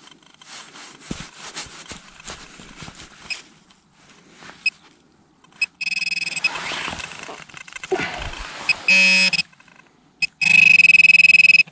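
Soil being scraped and dug by hand, small scratches and clicks, then a handheld metal-detecting pinpointer sounding its steady buzzing alert tone in several bursts, the longest and loudest near the end, as it signals a metal target in a handful of loosened soil.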